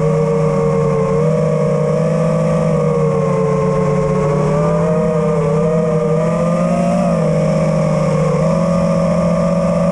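FPV drone's brushless motors and propellers whining at fairly steady throttle, the pitch wavering slightly with small throttle changes.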